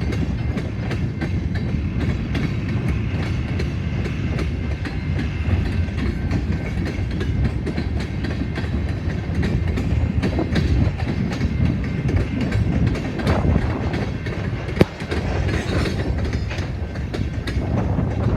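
Train cars rolling past: a steady low rumble with the clickety-clack of wheels over rail joints, and one sharp knock about fifteen seconds in.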